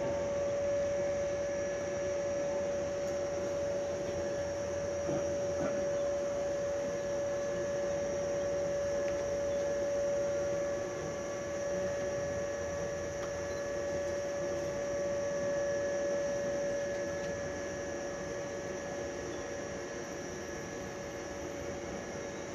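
A JR West 105 series electric train standing at the platform, humming steadily with one clear, unchanging tone over a low hiss.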